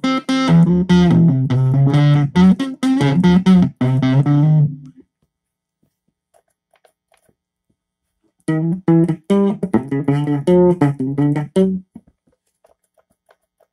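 Strat-style electric guitar played through a Zoom 506 bass distortion pedal, picking a fast riff of single notes. The riff breaks off about five seconds in, starts again a few seconds later, and stops about three seconds after that.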